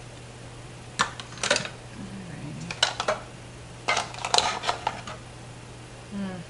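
Metal kitchen utensils clinking and rattling as someone rummages through them for a measuring spoon, in several short clusters of clinks over the first five seconds.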